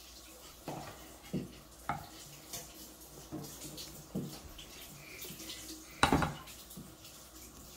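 A utensil knocking and scraping against a mixing bowl in irregular strokes as hotteok dough is stirred, with one louder clatter about six seconds in.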